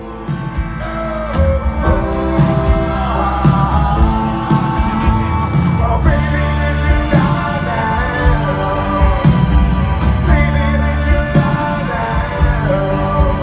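Live rock band playing a song with a lead singer over acoustic and electric guitars, bass, keyboards and drums; the music fades in at the start and then holds steady.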